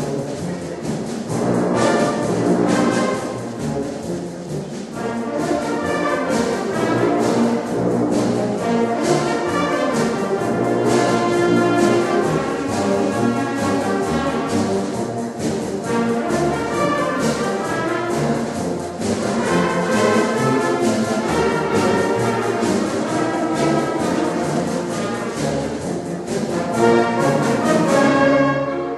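Orchestral background music led by brass.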